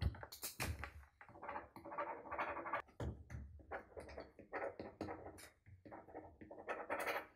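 A pen scratching on a paper contract lying on a table in quick, irregular strokes as a signature is scrawled. A sheet of paper slides across the tabletop at the start.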